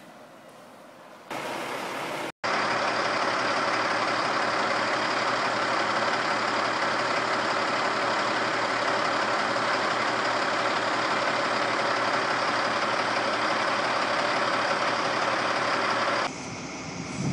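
Semi truck's diesel engine idling steadily, close by. It is faint for the first second or so, comes in loud after a brief cut about two seconds in, and drops in level near the end.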